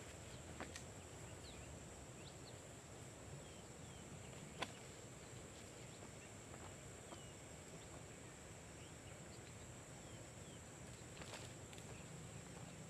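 Faint rural ambience: a steady high-pitched insect drone with scattered short bird chirps. A single sharp click comes about a third of the way through.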